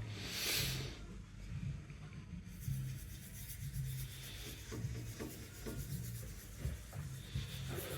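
Cloth buffing wax polish onto a machine bed in small circular strokes: a soft, faint, repeated rubbing.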